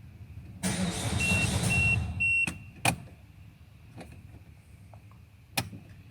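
Starter cranking the Peugeot 1.6 HDi diesel engine for just under two seconds without it firing: the crank-but-no-start fault. Three short evenly spaced beeps sound during the cranking, and a few sharp clicks follow.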